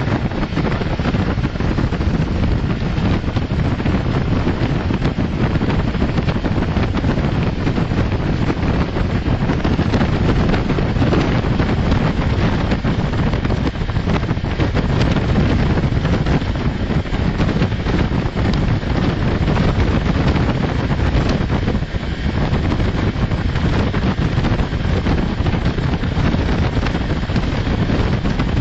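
Wind buffeting the microphone at the window of a moving Intercity train, over the steady rumble of its wheels on the rails.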